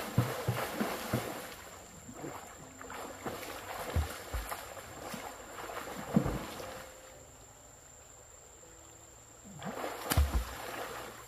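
Stream water splashing and sloshing as a person swims and dives through it, in irregular splashes with a few low thuds. It quietens for a couple of seconds, then splashes hard again near the end.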